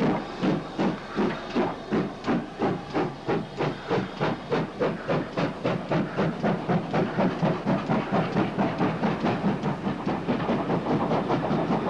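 Steam locomotive working hard up a steep bank, its exhaust beating in sharp, regular chuffs about three times a second that gradually quicken as the train gathers speed.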